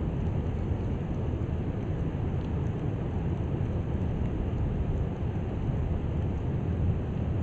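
Steady low rumbling noise of surf breaking along a beach, mixed with wind on the microphone, with no separate events standing out.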